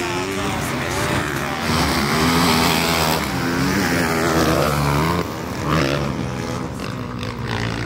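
Motocross dirt bike engines revving, the pitch rising and falling repeatedly as the throttle opens and closes.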